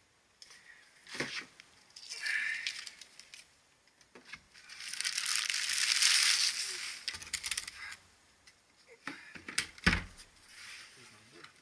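Clear plastic bag rustling and crinkling as it is pulled off a hard plastic tool case, loudest for a few seconds in the middle, with scattered clicks and a sharp thump near the end as the case is handled on the tile floor.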